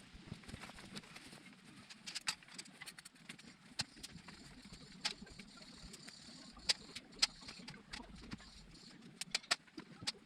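Scattered light taps and clicks at irregular intervals, with a cluster of them near the end, over a faint steady background.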